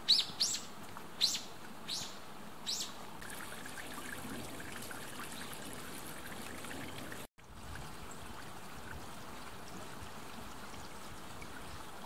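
A bird giving five loud, high calls in quick succession in the first three seconds, each sweeping downward in pitch, over a steady background hiss.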